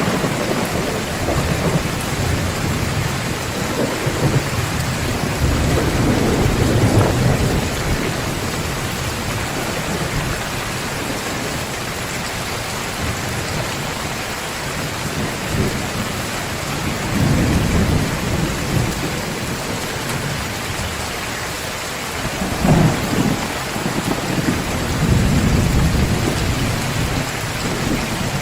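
Heavy rain pouring steadily, with low rolls of thunder rumbling several times: around four to seven seconds in, once near the middle and twice near the end.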